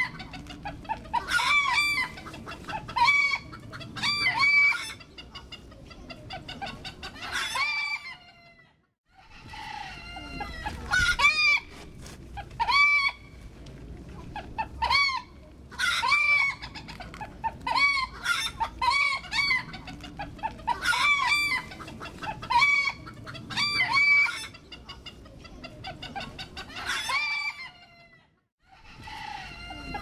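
Domestic hens clucking over and over in quick runs of short arched calls, with two brief pauses, about a third of the way in and near the end.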